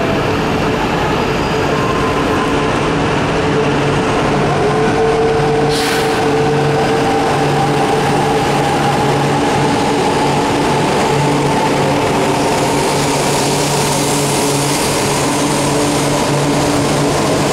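E4 series Max double-deck Shinkansen train departing: its traction motors whine steadily upward in pitch as it gathers speed, over a steady low hum and rolling noise. A brief hiss comes about six seconds in.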